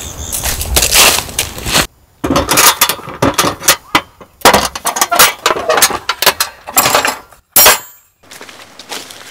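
Footsteps crunching through dry fallen leaves, then, after a short break about two seconds in, a run of clicks and clanks as a steel toolbox's latches and lid are opened and metal tent pegs clink inside it, ending in one sharp metallic clink near the end.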